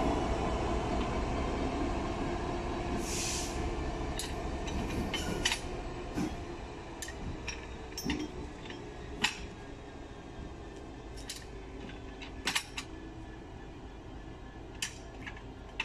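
Class 66 diesel locomotive's two-stroke V12 engine running as it pulls away, growing steadily fainter as it recedes. Scattered sharp clicks and clanks throughout, and a brief hiss about three seconds in.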